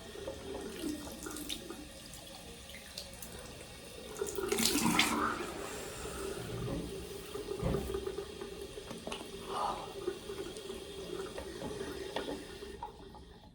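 Tap water running into a sink as someone washes their face and rinses their mouth, with louder splashing about five seconds in. The water stops just before the end.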